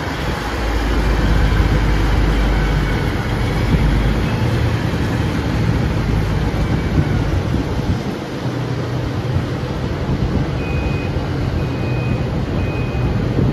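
Heavy crushing-plant machinery rumbling steadily, deepest in the first few seconds. From about eleven seconds in, a dump truck's reversing alarm beeps about once a second.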